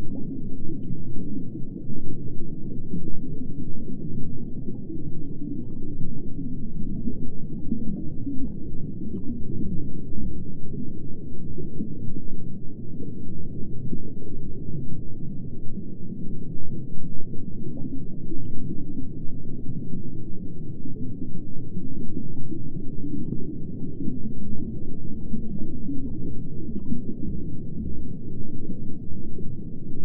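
Underwater ambience sound effect: a steady, muffled low rumble of moving water, with faint scattered small pops.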